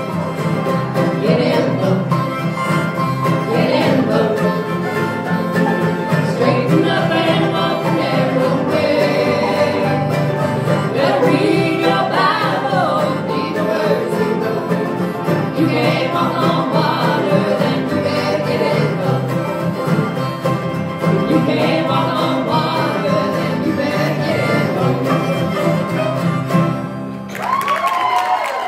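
Acoustic bluegrass band playing a song: strummed guitars, mandolins and banjo, with voices singing the melody.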